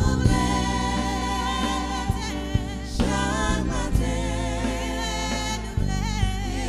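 Haitian gospel song: voices singing in Haitian Creole with vibrato, over a band with bass and drums.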